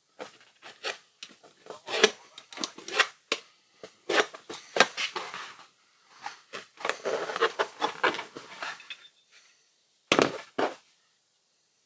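Hand work with small hard parts and tools on a bench: irregular clicks, knocks and scraping rustles for about nine seconds, then two sharp knocks about ten seconds in.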